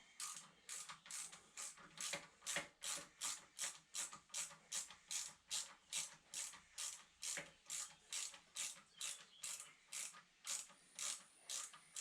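Ratchet wrench being swung back and forth in short, even strokes, about three clicks a second, run down a nut to tighten it.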